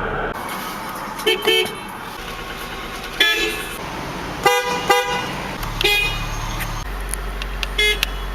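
Nissan car horn sounded in a series of short toots, about seven, unevenly spaced, with some coming in quick pairs.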